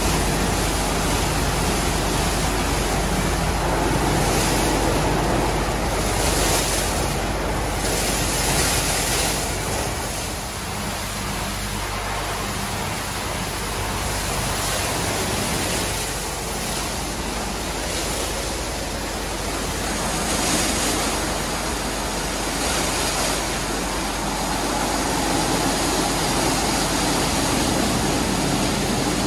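WashTec rollover car wash gantry at work: rotating wash brushes sweeping over a car body and water spray jets hitting it, making a steady rushing, splashing noise that slowly swells and eases.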